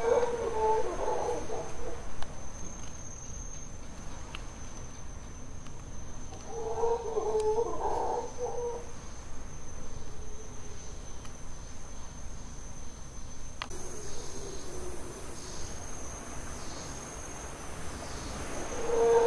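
Howler monkeys calling in short guttural bouts of one to two seconds, three times, several seconds apart, over a steady high insect buzz.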